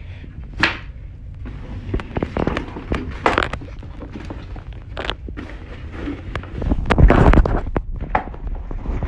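Rustling and knocking handling noise as a phone is jostled against fabric, with soft footsteps in socks; the loudest bump and rustle comes about seven seconds in.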